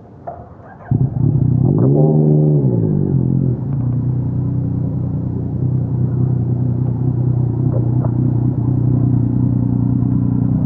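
Yamaha YTX 125 single-cylinder motorcycle engine cutting in abruptly about a second in. It revs up and back down once, then runs at a steady note.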